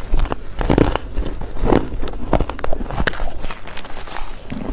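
Bites and chewing of powdery freezer-frost ice close to the microphone: an irregular run of dry, squeaky crunches.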